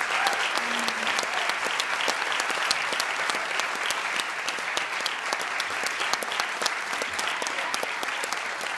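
Applause from an audience: dense, steady clapping, easing off slightly toward the end.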